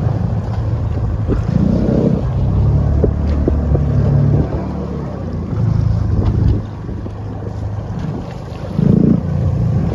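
Fishing boat's engine running steadily, its low drone swelling and easing, with wind on the microphone and a few light knocks.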